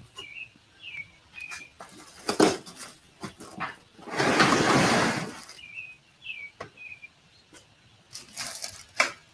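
Short, high, sliding animal calls, several of them, with a few light knocks and a loud rustle lasting about a second and a half, beginning about four seconds in.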